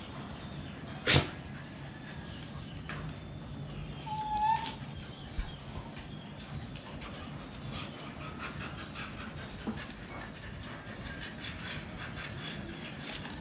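Dogs moving about a tiled yard, with one sharp knock about a second in and a short high whine a few seconds later, over a low steady hum.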